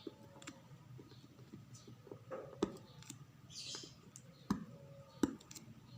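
Packaging being handled and opened by hand: a few sharp light clicks and a brief rustle.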